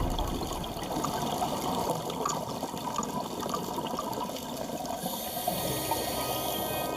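Underwater sound picked up by a diving camera: an even wash of water noise with faint scattered clicks and crackles. A thin high hiss joins in about five seconds in.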